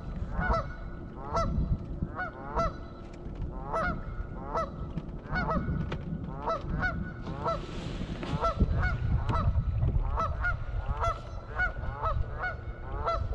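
Canada geese honking over and over, several birds calling a few times a second in overlapping runs. A low rumble of wind on the microphone lies underneath.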